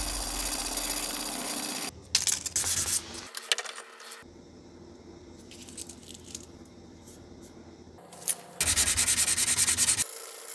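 Damascus steel kitchen-knife blade being hand-sanded with an abrasive sheet: quick back-and-forth rubbing strokes. The rubbing stops about two seconds in, gives way to a few knocks and handling sounds and a quieter stretch, then starts again near the end.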